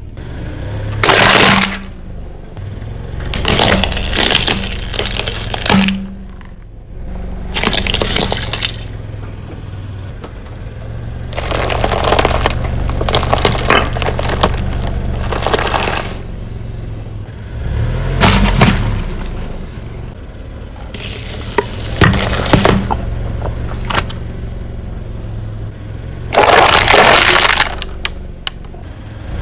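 Car tyre rolling over and crushing brittle objects: a series of cracking, breaking crunches a few seconds apart over the low hum of the car.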